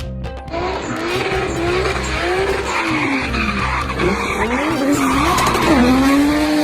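Race car sound effect: tyres screeching with a wavering pitch that swings up and down over a noisy hiss, settling into one held tone near the end.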